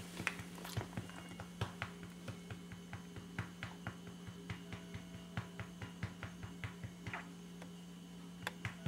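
Hand patting a beagle to bring up an after-dinner burp: light, irregular taps, about two or three a second, over a steady low hum.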